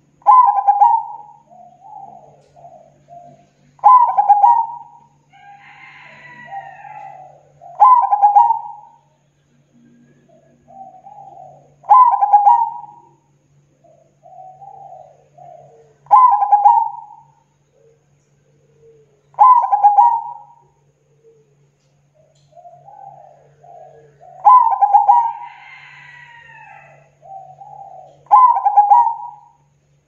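Zebra dove (perkutut) cooing: a loud rolling coo about every four seconds, eight times, each trailing off into softer notes.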